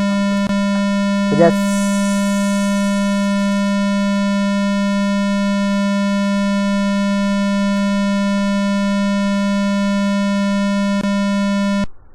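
Steady, buzzy computer beep tone generated by Turbo C++'s sound(200) function at 200 Hz. It holds without a break and cuts off suddenly near the end. It keeps sounding even after leaving the output screen, because the program never calls nosound().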